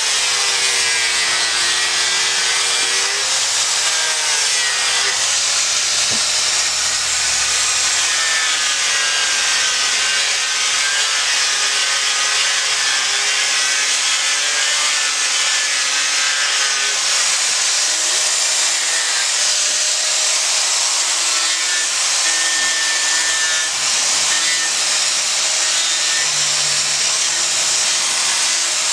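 Handheld angle grinder running without a break as its disc grinds away monkeypod wood to rough out a carving. Its whine wavers and dips in pitch as the disc bites into the wood, over a steady rasping hiss.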